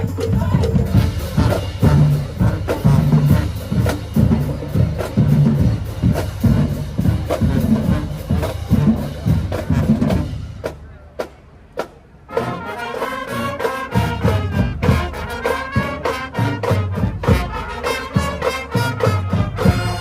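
Marching band playing: the drumline pounds out bass and snare beats with brass underneath. About halfway through it drops out briefly to a few isolated hits, then the brass horns come in with sustained chords over the drums.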